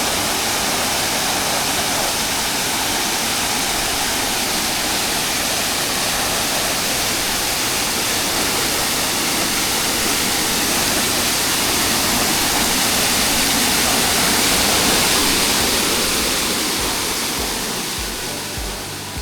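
Kithal Ella waterfall: water falling and splashing in a loud, steady rush that fades down near the end.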